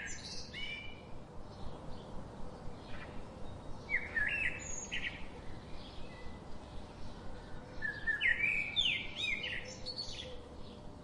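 Songbirds chirping: clusters of short, quick up-and-down chirps at the start, again about four seconds in, and a longer run around eight to ten seconds, over faint background hiss.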